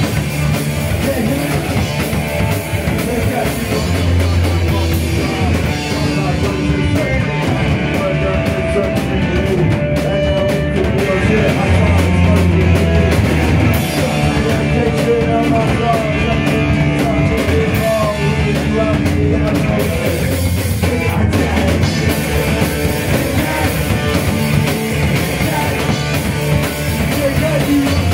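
Live punk rock band playing loud: distorted electric guitar, bass guitar and a drum kit.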